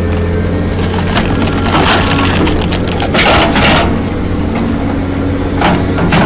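Wood cracking and splintering under a heavy machine, with loud bursts about two seconds in, from three to nearly four seconds, and again near the end, over the steady drone of the machine's engine running.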